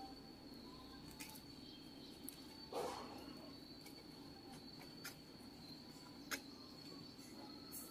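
A steady, high-pitched insect trill runs throughout, under faint scraping and patting of gloved hands working potting soil around a bonsai's roots in a ceramic pot; the loudest scrape comes just under three seconds in, with a few light clicks.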